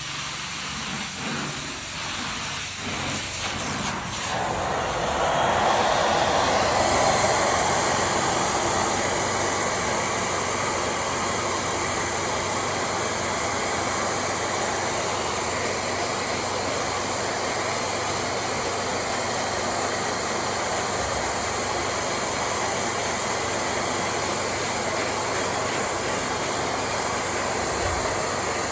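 Carpet-cleaning equipment running, a steady loud hissing rush that starts about four seconds in and holds level.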